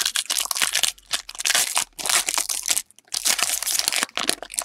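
Trading-card pack wrappers crinkling and being crumpled as packs are torn open and the cards handled. The crinkling comes in quick, irregular bouts with short pauses, the longest about three seconds in.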